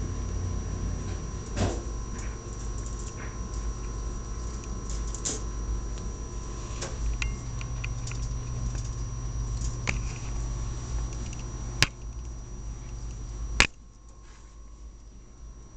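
Scattered light clicks and rattles of pet rats scrambling about a wire cage, over a steady low hum. Two sharper clicks come near the end, and the hum drops away after the second.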